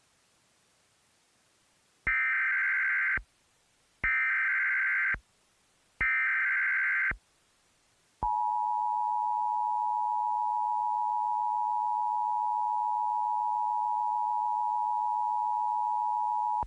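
Emergency Alert System broadcast tones: three one-second bursts of SAME digital header data, a second apart, then the EAS two-tone attention signal, a steady dual tone held for about eight seconds. The alert carries a tornado warning.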